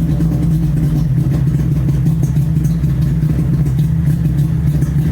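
Car engine running steadily at a constant speed.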